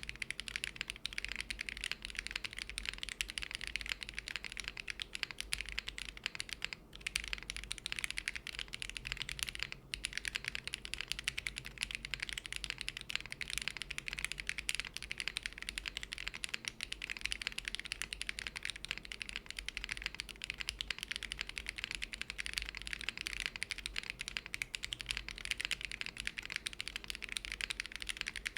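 Custom mechanical keyboard built without foam, with melody switches and GMK keycaps, being typed on fast: a continuous run of dense keystroke clacks, broken by brief pauses about 7 and 10 seconds in.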